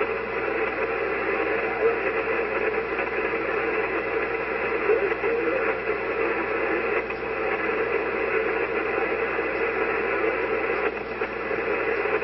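Amateur radio receiver on the 40-metre band giving a steady hiss of static and band noise with no readable signal, in conditions of heavy atmospheric static (QRN).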